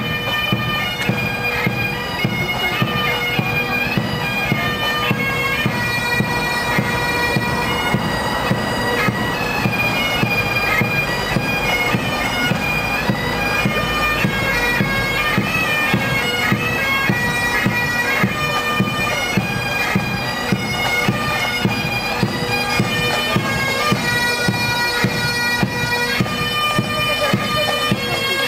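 A military pipe band playing a march: massed bagpipes sounding a melody over a steady held drone, with drums keeping a regular marching beat underneath.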